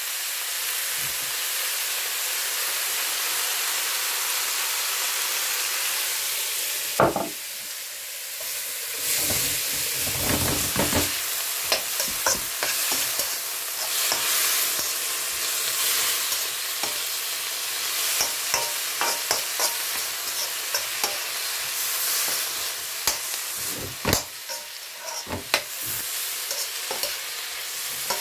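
Vegetables sizzling in a hot wok while a spatula stirs and scrapes them, with scattered clicks and occasional louder knocks of the spatula against the pan.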